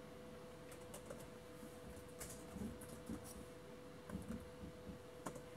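Faint typing on a laptop keyboard: scattered soft keystrokes at an uneven pace, as a username and password are entered, over a faint steady hum.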